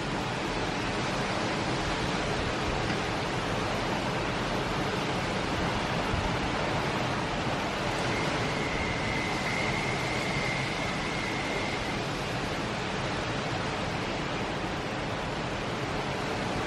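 Steady rushing noise of hurricane wind and rain. A faint high steady tone sounds for a few seconds midway.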